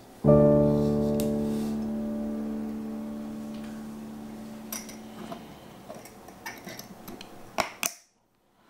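A piano chord struck once, ringing out and slowly fading. Near the end come several short, light clicks and taps, the last two the loudest, before the sound cuts off abruptly.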